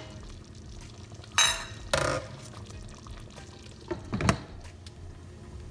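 Metal clinks on the curry pan and its lid: two ringing ones about a second and a half and two seconds in, and a duller knock about four seconds in, over the steady low sound of the curry simmering.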